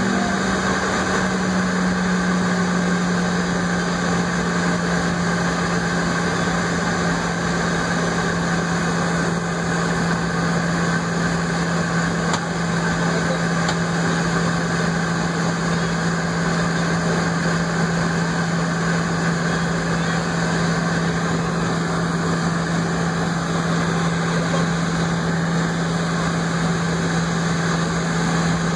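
Jet airliner taxiing, heard from inside the passenger cabin: the engines at idle make a steady drone with a strong low hum that settles slightly lower in pitch in the first couple of seconds, over the steady rush of cabin air.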